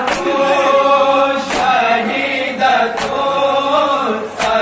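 Group of male voices chanting an Urdu noha lament in unison, with a sharp beat of hands striking chests in matam about every second and a half, four times.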